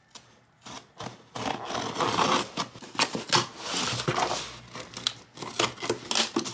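Small folding scissors slitting the packing tape along a cardboard box's seam: a scratchy, ripping scrape with sharp clicks that starts about a second in, then the cardboard flaps being pulled apart near the end.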